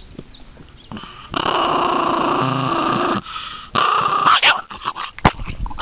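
A dog growling over a raw meaty bone, guarding it: one long growl of nearly two seconds, a short pause, then a second, shorter growl. A few short clicks follow, with one sharp click near the end.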